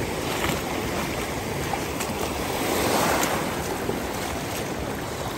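Shallow surf washing in over the sand and around bare feet, a steady rush of water that swells about three seconds in.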